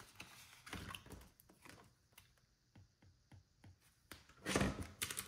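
Soft desk handling sounds: a paper envelope and binder pages being handled, with a series of faint light taps from a stylus writing on a tablet screen, then a louder rustle near the end.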